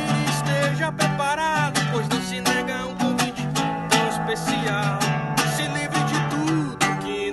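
A man singing in Portuguese to his own strummed small acoustic guitar, a song in the key of D, with regular chord strums under a sung melody that wavers in pitch.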